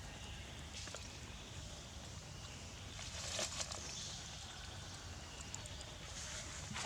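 Outdoor background noise with a few brief noisy rustles and clicks, the loudest about three seconds in.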